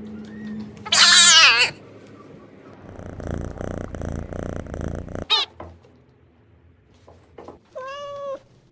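Domestic cat meowing loudly about a second in, then purring while it is petted, with a short meow after the purring and another meow near the end.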